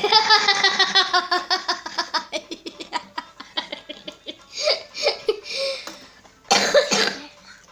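A child laughing hard: a sudden high-pitched burst of rapid, pulsing laughter that slowly falls in pitch and trails off, then another short outburst near the end.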